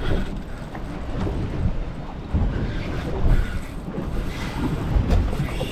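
Wind buffeting the microphone in gusts, a rough low rumble over the sound of open water around a small boat.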